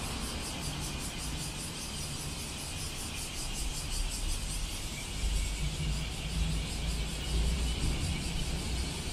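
City street traffic running steadily, a low rumble of passing vehicles, with a fast, faint high ticking that comes and goes.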